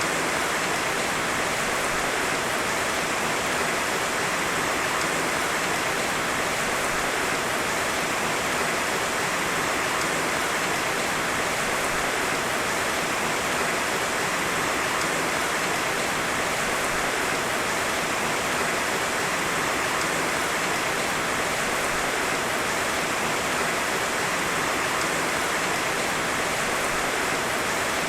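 Heavy rain falling steadily: a dense, even hiss with no thunder.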